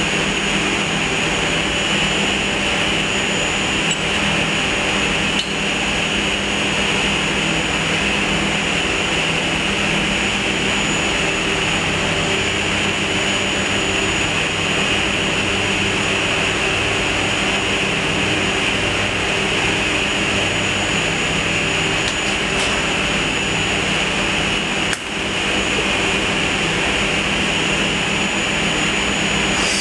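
Steady, loud machine drone with a high whine from a powered tube puller, running while old copper tubes are drawn out of a heat exchanger's tube sheet; the level dips briefly near the end.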